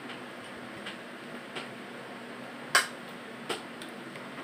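Four light clicks and clinks of a ceramic bowl as food is picked from it by hand, the loudest about three-quarters of the way through, over a faint steady hum.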